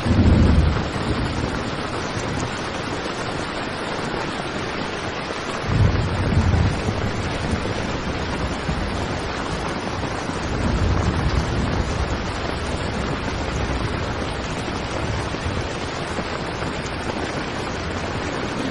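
Heavy rain drumming on a tent as a steady, dense hiss, with several short deep low rumbles rising out of it: one right at the start, one about six seconds in, and weaker ones later.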